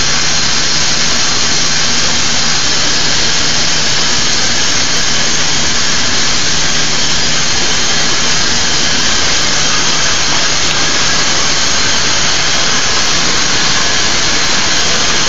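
A steady, loud rushing hiss that does not change, with a faint low hum underneath.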